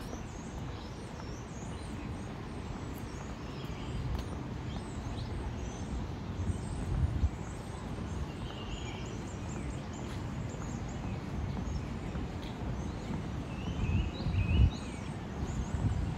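Many birds chirping, with short calls scattered throughout over a steady low outdoor rumble. A couple of louder low bumps come about seven and fourteen seconds in.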